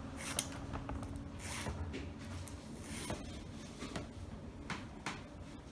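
Hand file drawn across an American Lock key blank in a handful of light scraping strokes, about a second or more apart. The strokes are kept light as the cut nears the right depth for its key pin.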